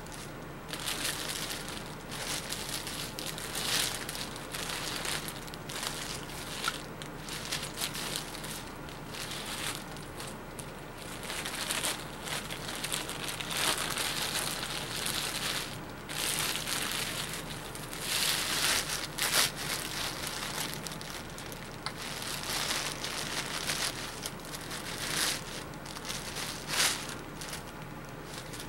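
Clear plastic bag crinkling and rustling in uneven bursts as it is pulled and worked off a long rifle.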